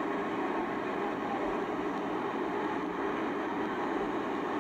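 Fire engine running steadily: a constant even noise with a faint hum, and no clear knocks or breaks.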